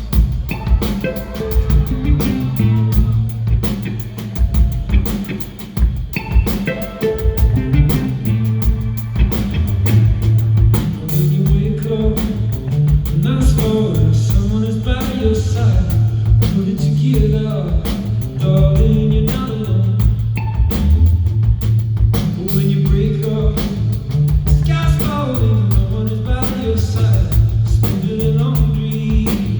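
Live band music in a rock style: drums keeping a steady beat under a bass line that steps between notes, with singing over it.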